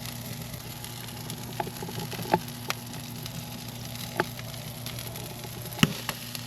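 Corn cooking on a grill: a faint steady sizzle over a low hum, with five short sharp cracks, the loudest near the end.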